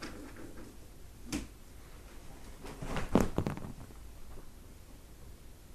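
Light clicks and a short patter of dry dog kibble landing on a person and the couch, loudest about three seconds in.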